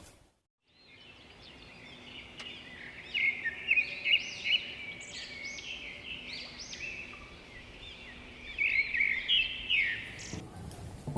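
Birds chirping and singing, a busy run of short rising and falling calls that starts after a moment of silence and cuts off abruptly near the end.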